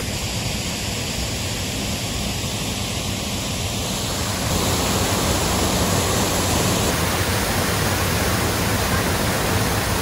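Water pouring over a low concrete weir into a shallow river: a steady rush of falling water that gets louder about halfway through.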